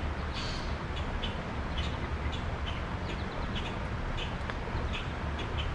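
A bird chirping repeatedly, short high chirps a few times a second, over a steady low rumble.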